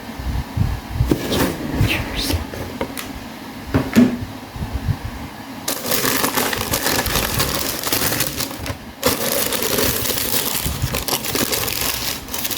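Packaging being handled and opened: scattered crackles and rustles, turning into a dense, continuous crinkling rustle about halfway through.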